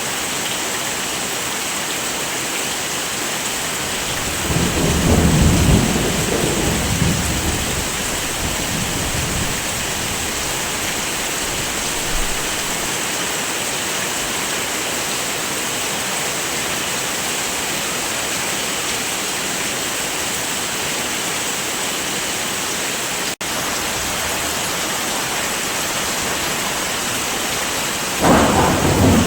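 Steady heavy rain with two low rolls of thunder: one about four seconds in that rumbles for several seconds, and another starting near the end. The rain cuts out for an instant about two-thirds of the way through.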